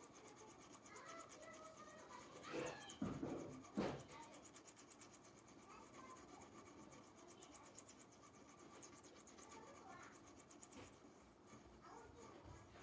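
Faint scratching, with a few louder short scrapes or knocks about three to four seconds in.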